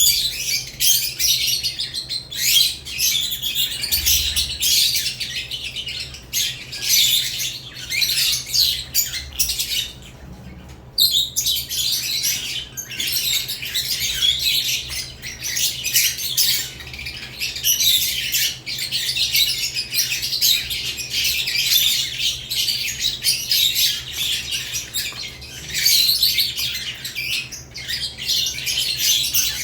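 Several caged lovebirds chattering, with constant high-pitched chirps and squawks overlapping, pausing briefly about a third of the way in before resuming.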